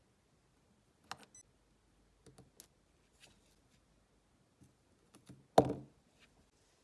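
Scattered light clicks and taps of steel tweezers, a soldering iron and small parts being handled on a workbench during soldering, with one louder knock toward the end.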